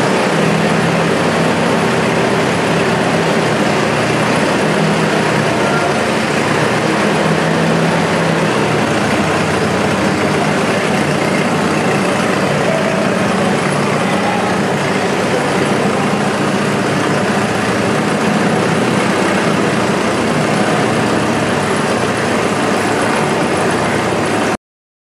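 A 1949 Case LA tractor's four-cylinder engine running steadily at idle.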